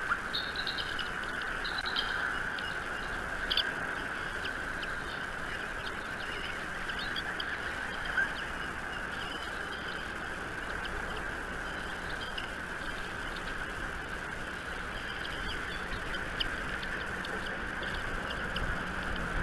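Birds chirping: scattered short, high chirps over a steady background hiss.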